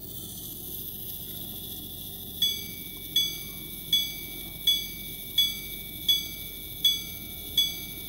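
Antique grand sonnerie and repeater pocket watch's repeater striking the hours on its gong: single clear ringing strikes of the same pitch, evenly spaced about three-quarters of a second apart, beginning about two and a half seconds in and still going.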